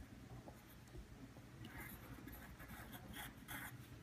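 Faint scratching of a pencil drawing on paper. Several short strokes come in the second half.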